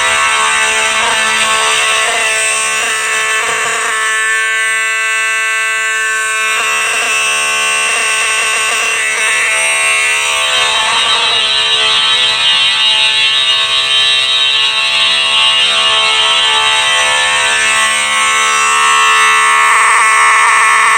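Simplex 4903 mechanical fire alarm horn sounding continuously: a loud, steady, buzzing horn tone with no breaks.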